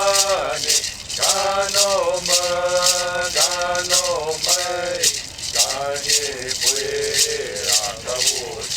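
A voice singing a slow chant-like song in long, held notes, accompanied by a hand rattle shaken in a steady beat of about three strokes a second.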